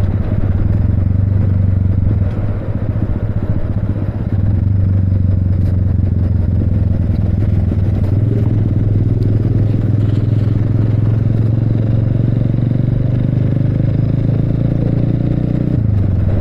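Motorcycle engine running steadily under way. Its note climbs slowly over the last few seconds, then drops sharply near the end.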